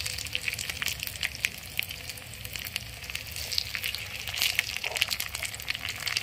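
Oil sizzling and crackling in a miniature clay pot as small shallots and mint leaves fry. There is a steady hiss with many small pops throughout.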